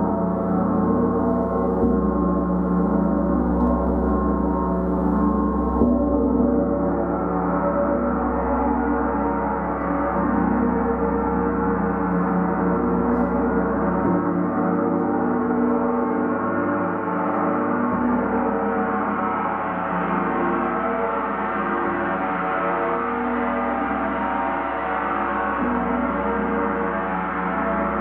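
A gong kept sounding continuously, a dense, steady wash of many overlapping held tones with no distinct strikes.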